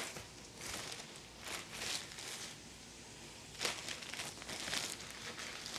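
A series of brief, soft rustling and scraping handling noises in a kitchen, spaced irregularly.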